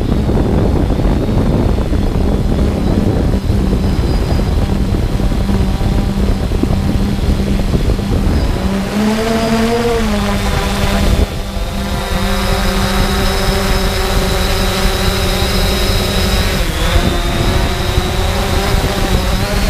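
3DR Solo quadcopter's electric motors and propellers humming steadily in flight, heard from the camera on the drone, with wind buffeting the microphone. The pitch rises briefly about nine seconds in, and from about eleven seconds the hum turns into a cleaner whine with several pitches as the wind rumble drops.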